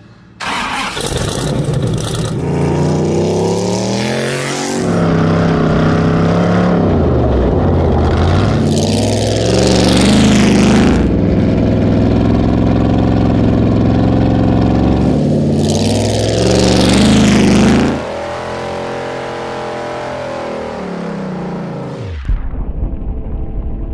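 Four-cylinder car engine being driven hard, its pitch climbing as it accelerates and falling back several times, as at gear changes, then easing off near the end.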